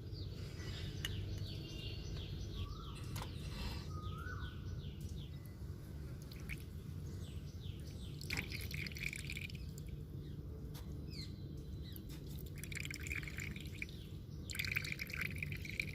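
Many short, quick bird chirps over a steady low hum, with a few louder bursts of chirping near the middle and end.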